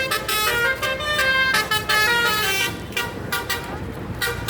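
Basuri 'telolet' multi-tone bus horn playing a quick tune of short stepped horn notes. The notes thin out and get quieter after about three seconds.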